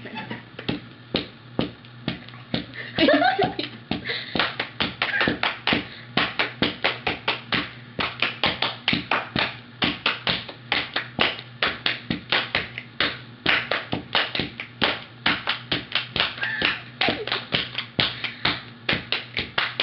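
Hand percussion: palms clapping and patting on the lap in a quick, even rhythm of about five strikes a second.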